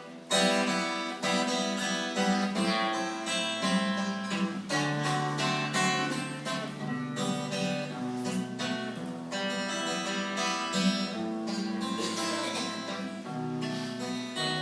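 Acoustic guitar strummed chords in an instrumental break between verses of a hymn, with no singing.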